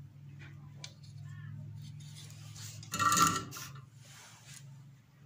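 Handling noises of soldering tools on a bench: light rustling, then about three seconds in a short, loud metallic clink with a brief ring, over a steady low hum.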